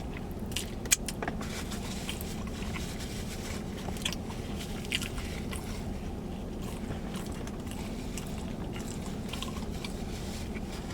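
Close-up mouth sounds of a person biting and chewing food, with scattered wet clicks and a sharper click about a second in, over a steady low hum.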